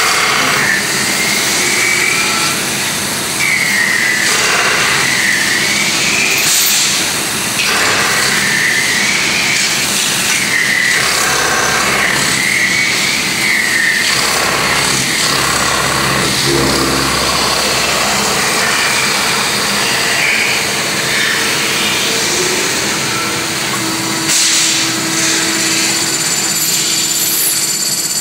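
CNC metal-spinning lathe forming a 1/8-inch aluminum blank with a forming roller: a steady machine noise with a high squeal that dips and rises in pitch every few seconds.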